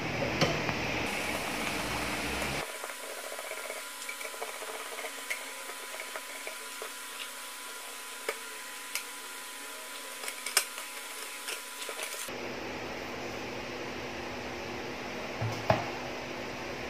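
Small clicks and taps of a screwdriver and screws working on the metal case of a computer power supply, over a steady hiss, with a louder clunk near the end as the cover comes off.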